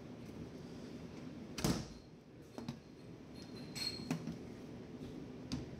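Hard plastic telephone handset lifted off its cradle on a ship's auto-telephone console and handled. A few faint clicks and knocks, the clearest about 1.7 seconds in.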